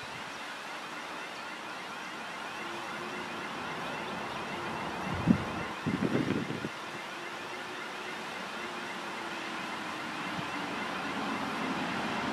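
ChME3 shunting diesel locomotive approaching slowly, its six-cylinder diesel engine running with a faint steady hum that grows louder as it nears. A sharp thump about five seconds in.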